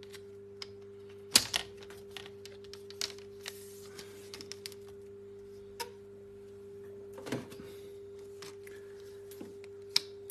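Laptop bottom case being handled and pressed onto the chassis: scattered clicks and taps of its snap-fit clips, with louder snaps about a second and a half in, about seven seconds in and near the end, over a steady low hum.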